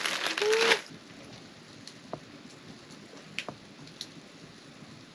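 Light rain falling steadily, with a few separate drips about two, three and a half and four seconds in. In the first second, a loud crinkling rustle cuts off.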